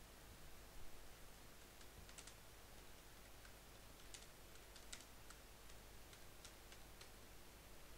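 Faint computer keyboard typing: irregular key clicks that start about two seconds in.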